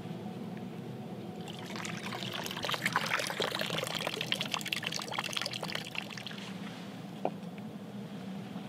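Liquid being poured, with a dense crackling patter that builds about a second and a half in and dies away after about five seconds, over a steady low hum.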